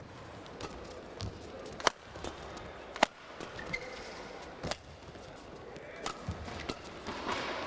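Badminton rally: sharp racket strikes on the shuttlecock at irregular intervals, the loudest about two, three and four and a half seconds in, over a low arena background.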